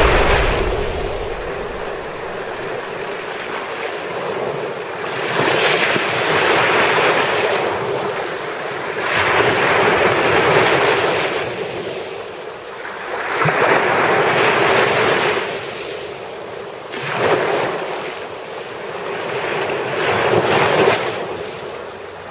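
Shallow Baltic Sea water washing and lapping, swelling and fading every three to four seconds.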